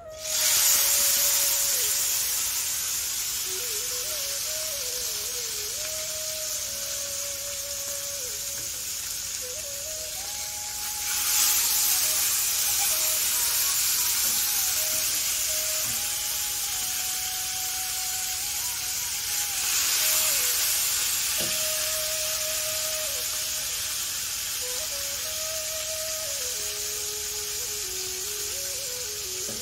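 Gravy-coated fish pieces sizzling in hot oil in a stainless steel frying pan. The sizzle starts suddenly as the first piece goes in and surges again about 11 and 20 seconds in as more pieces are added, easing off slowly between. Background music plays throughout.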